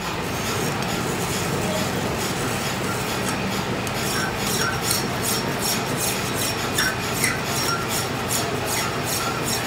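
A hand file held against a steel truck rear axle tube as it turns in a lathe, rasping in quick repeated strokes to smooth the freshly machined spindle surface, over the steady running of the lathe.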